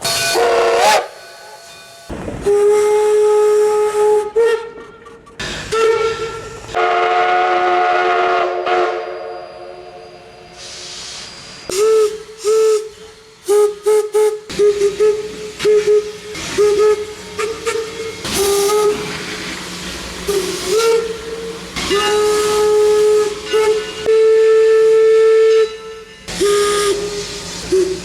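Steam locomotive whistle blown in a series of blasts: a few long ones and a run of short, quick toots, with steam hissing between them.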